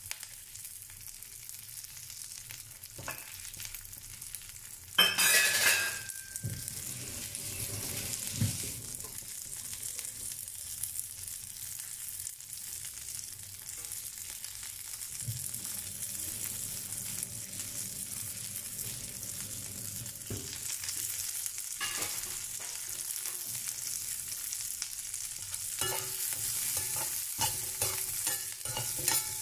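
Shallots, garlic and whole spices frying in sesame oil in a stainless steel pan, a steady gentle sizzle over a low flame. A loud metal clatter comes about five seconds in, and a slotted metal spoon scrapes and knocks against the pan as the mixture is stirred near the end.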